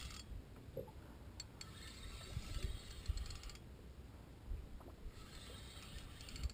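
Fixed-spool spinning reel being cranked in two spells, its gears whirring faintly, as a hooked fish is reeled in on light tackle. The first spell runs about two seconds from a second and a half in; the second starts about a second before the end.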